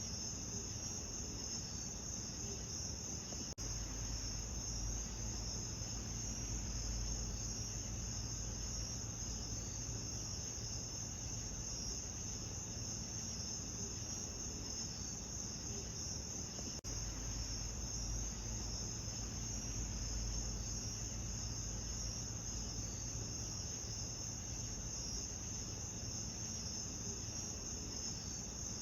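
Crickets chirping in a continuous, high-pitched chorus over a low steady rumble. The sound drops out for an instant twice, about 13 seconds apart, where the recording loops.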